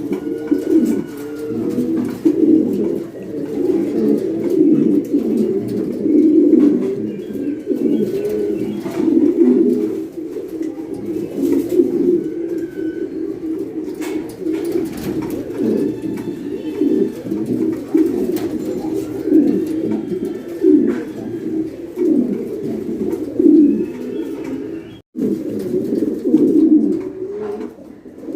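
Several pigeons cooing, their low calls overlapping almost without a pause, with a brief break about 25 seconds in.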